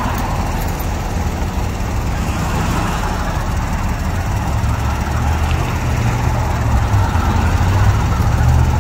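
Road traffic passing on a busy multi-lane road, with a low engine rumble that grows louder in the second half.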